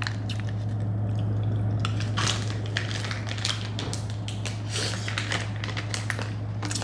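Plastic gummy-candy bag crinkling and rustling in the hands, in short crackly bursts, with soft chewing, over a steady low hum.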